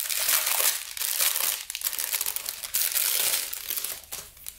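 Thin clear plastic bags crinkling and rustling as they are handled. These are the small bags of diamond-painting drills. The sound is a busy run of crackles that eases off about four seconds in.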